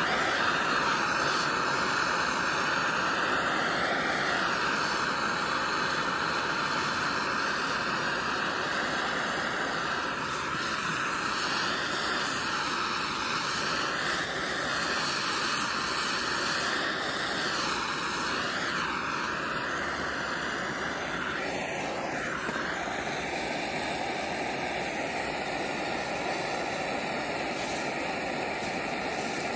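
Hand-held gas torch burning with a steady hiss while it heats an oxalic acid vaporizer pipe. The sound wavers as the flame is swept over the pipe, then steadies about two-thirds of the way through, once the torch is set down aimed at the pipe's cap.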